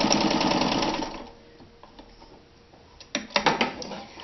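Kenmore 158-series electric sewing machine stitching through bonded leather at speed, a fast even ticking, then winding down and stopping about a second in. A few sharp clicks follow near the end.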